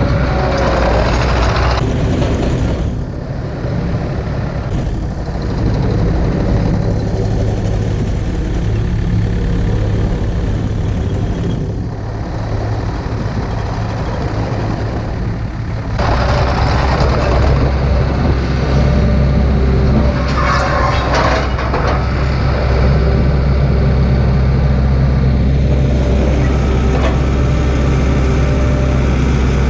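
Diesel engine of heavy equipment running steadily, its tone changing abruptly about sixteen seconds in.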